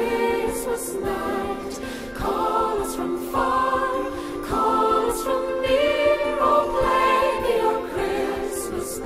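Music with a choir singing, in the style of a Christmas carol.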